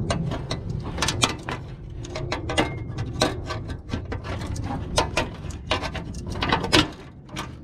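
Irregular sharp clicks, knocks and scraping of a metal pry bar levering against an aluminum car fender's mounting bracket, working at the clip that holds the fender on.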